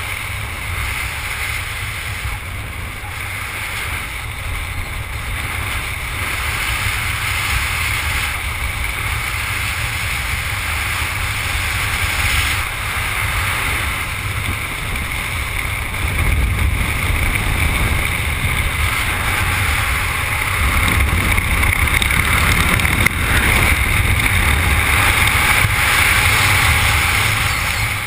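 Wind rushing over a helmet camera's microphone during parachute canopy flight: a steady noisy rush with low buffeting that grows louder over the second half, on the final approach to landing.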